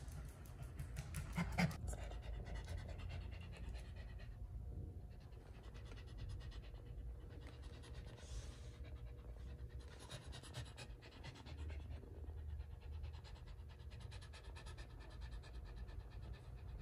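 Bichon frisé dog panting close up, quick steady open-mouthed breaths, with one brief louder sound about a second and a half in.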